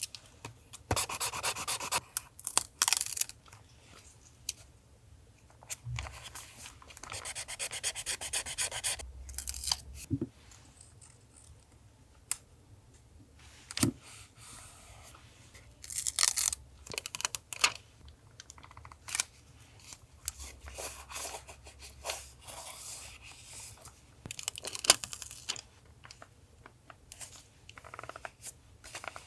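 Paper being handled for collage journaling: bursts of rustling, rubbing and tearing paper, with scattered sharp taps and clicks, over a low steady hum.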